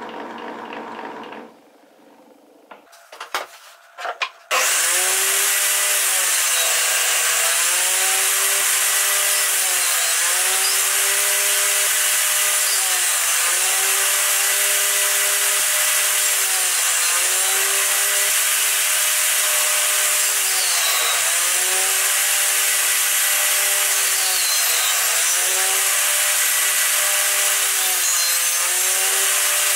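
Table saw that starts after a few clicks and then runs steadily at full speed. Its motor pitch dips and recovers every three to four seconds as the tenoning jig is pushed back and forth, cutting slots in the end of an upright wooden workpiece.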